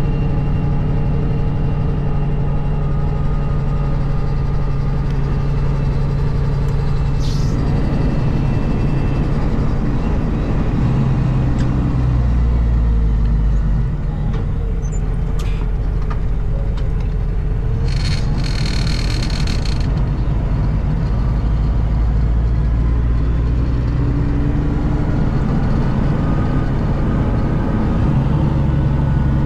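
International ProStar semi-truck's diesel engine running steadily as the truck drives, with a brief hiss about two-thirds of the way in.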